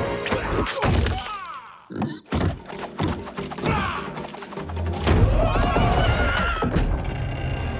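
Animated-film fight soundtrack: action score music under a string of cartoon impact effects (thuds, whacks and crashes), with a brief hush about two seconds in before the hits resume.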